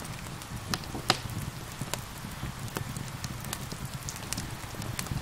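Wood fire crackling with scattered sharp pops, the loudest about a second in, over a steady patter of rain.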